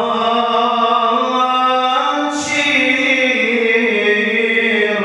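A male singer holds a long drawn-out note of an Arabic religious chant. He moves onto a new, brighter note about two and a half seconds in.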